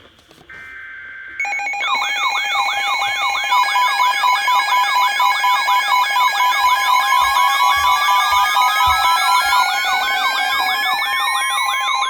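Weather-radio alert signals: short warbling two-pitch data bursts of an emergency alert code, then, about a second and a half in, several electronic alarms sounding together, with fast repeating siren-like sweeps, steady beeping tones and a slow rising whistle. In the second half a steady single-pitch alert tone joins in, announcing the next warning.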